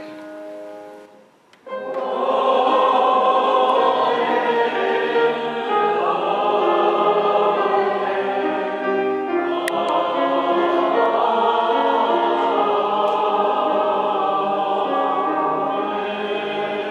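A held chord dies away, then a choir starts singing about two seconds in, many voices holding a hymn together.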